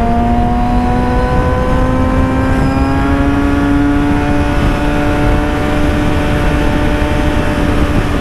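Yamaha YZF-R6's inline-four engine pulling hard at high revs under sustained acceleration, its pitch rising slowly and steadily, with heavy wind noise on the microphone.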